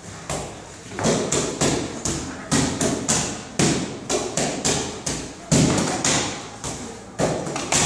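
Gloved punches landing on padded focus mitts: a rapid, irregular run of sharp slaps, about three a second, from two pairs working at once, starting soon after the beginning and getting louder about a second in.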